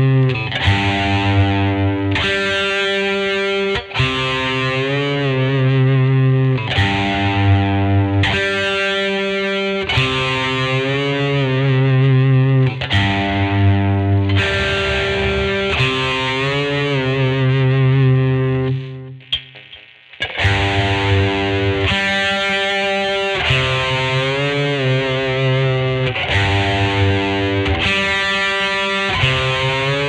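Squier Vintage Modified Telecaster Thinline electric guitar played through a Peavey amp with a distorted tone. Chords are strummed and left to ring, a new one every second or two, with a brief pause about two-thirds of the way through.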